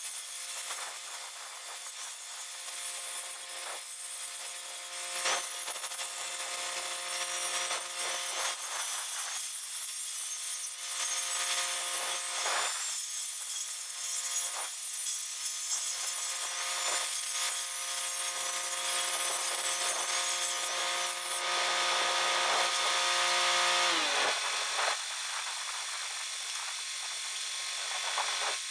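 Angle grinder grinding down and cleaning up a fresh torch cut in a steel tool bar: a steady motor whine under a rasping grinding hiss. About 24 seconds in it is switched off and its whine winds down.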